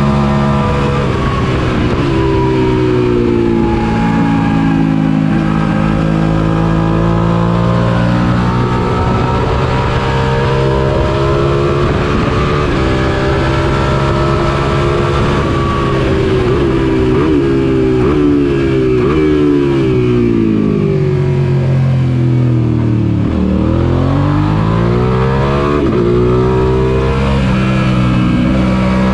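Suzuki SV650's 90-degree V-twin engine, heard onboard at racing speed. The revs climb and drop repeatedly with gear changes, fall steeply to their lowest about three-quarters of the way through, then climb again through the gears.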